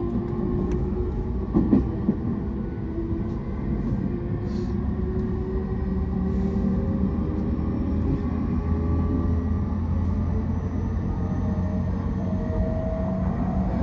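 Running noise heard inside a moving JR East electric commuter train: a steady rumble of wheels on rails with the whine of the traction motors, the whine slowly rising in pitch. A single short knock about two seconds in.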